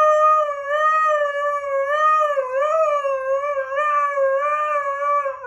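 Dog howling in one long, unbroken note that wavers gently up and down in pitch.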